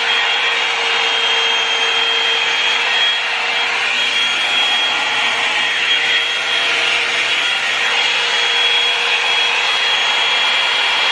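Revlon One-Step hair dryer and volumizer brush running steadily: a rush of blown air with a constant high whine from its fan motor.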